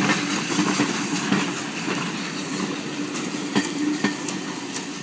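Steam train's coaches rolling past on the track, the wheels clattering with scattered sharp clicks. The sound slowly fades as the train moves away.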